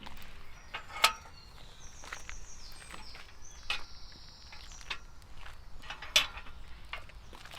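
Outdoor garden field recording: a few sharp knocks or clicks, the loudest about a second in and another about six seconds in, with a high hiss from about two to five seconds and faint short high chirps.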